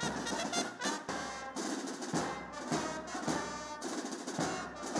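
Scout marching band playing: trumpets and trombones sounding held notes over a steady beat of snare drums.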